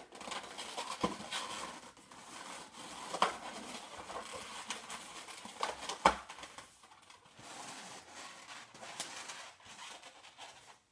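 Latex twisting balloons rubbing and squeaking as they are pulled tight and twisted together, with a few sharper squeaks or snaps about one, three and six seconds in.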